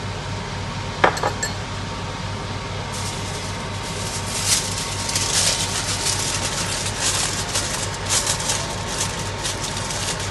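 Aluminium foil crinkling as it is pressed and crumpled around the rim of a biryani pot to seal it for slow cooking on a low flame. There is one sharp click about a second in, the crinkling starts about three seconds in, and a steady hum runs underneath.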